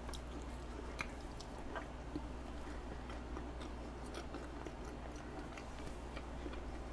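Quiet chewing of soft cheesecake, with small scattered wet mouth clicks over a low steady hum.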